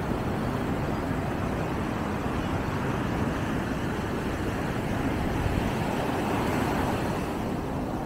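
Ocean surf washing onto a sandy beach: a steady rushing wash that swells a little about five to seven seconds in.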